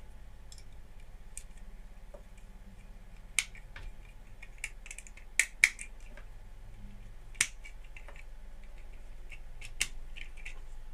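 Plastic Lego bricks being handled and pressed together, making scattered sharp clicks at irregular intervals. The loudest clicks fall a few seconds in and around the middle, over a faint low hum.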